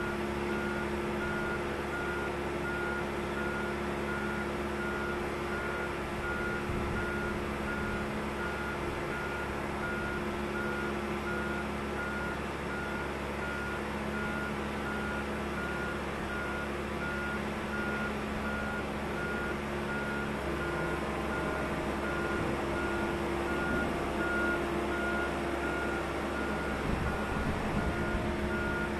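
Steady repeating single-pitch warning beeps from the hydraulic boat-transport or lift machinery as it moves, over the continuous hum of its motor. The hum changes pitch slightly about two-thirds of the way through.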